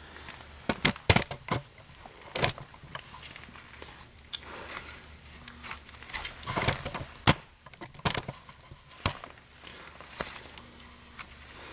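Electric drill slowly turning a left-hand drill bit in reverse in a broken bolt that is backing out of a snowblower axle: scattered sharp clicks and knocks as the bit grabs, with the drill motor running faintly in short spurts.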